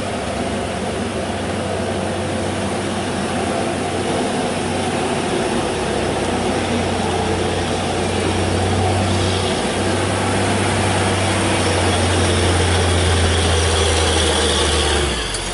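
Heavy truck's diesel engine working hard on a steep uphill climb. It is a deep, steady drone that grows louder, then drops away sharply near the end.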